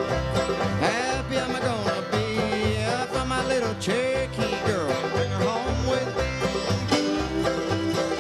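Old-time string band playing an instrumental passage: banjo and guitar keeping a steady rhythm under a gliding fiddle melody.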